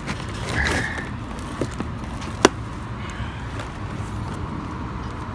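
A compressor's motor shaft being turned by hand with a steel bar: a short scrape about half a second in and one sharp metallic click about halfway through, over a steady low background rumble.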